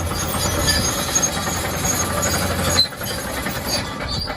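Brush scrubbing a muddy plastic toy bulldozer, a steady rough scraping with small clicks. A low hum under it stops about three-quarters of the way through.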